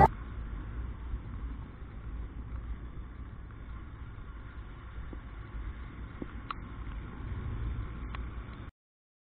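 Motorcycle ride noise on a wet road: a steady low rumble of wind, road and engine, with a couple of faint clicks. It cuts off abruptly near the end.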